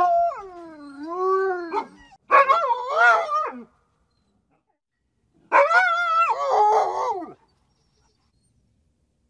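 A dog crying: whining and howling in three drawn-out bouts of wavering, pitch-bending cries, the first falling and rising again, with a pause of about two seconds between the second and third and silence after the last.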